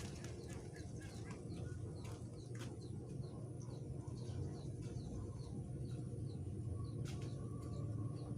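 A small bird calling a short, high chirp over and over, about three a second, over a steady low background rumble.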